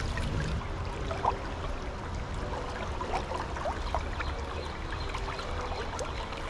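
Steady rush of a stream running high after rain.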